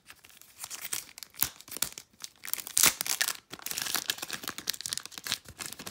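Wrapper of a football trading card pack being torn open and crinkled by hand, in irregular crackles and rips; the loudest rip comes about three seconds in.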